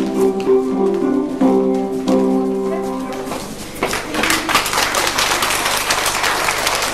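Music for the children's dance plays, a tune of plucked-sounding notes, and stops about three seconds in. Then an audience starts applauding, steady clapping to the end.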